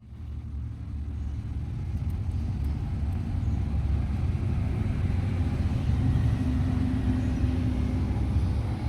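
Ford Ranger 2.2 diesel engine being cranked over by the starter, a steady low pulsing rumble that builds up in the first second and keeps going, as the truck turns over without starting.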